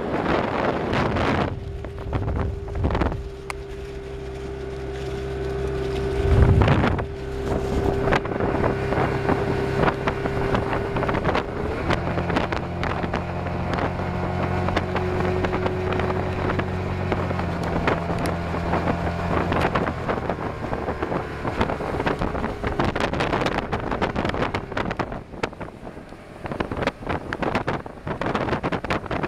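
Rebuilt Mercury 135 hp two-stroke V6 outboard running steadily under way, during its break-in, with wind buffeting the microphone and water rushing past the hull. A single loud thump comes about six seconds in, the engine tone shifts around twelve seconds, and in the last third the engine is mostly covered by wind and water noise.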